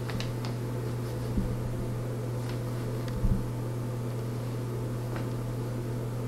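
Steady low room hum, with faint paper rustles and pen scratches as paper is handled and written on, and a soft thump about three seconds in.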